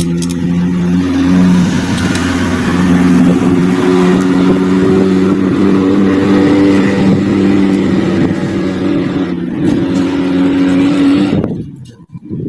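Kubota M6040 tractor's diesel engine running steadily at a fast idle, then cutting off suddenly near the end.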